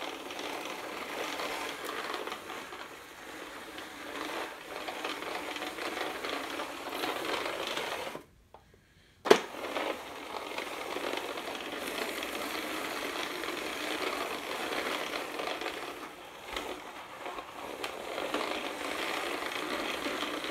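Hurricane Spin Broom manual push sweeper being pushed over the floor: its wheel-geared roller brush and rubber-geared spinning edge discs make a steady mechanical whirring rattle. About eight seconds in it stops for a second, then a sharp click comes as the sweeper starts rattling again.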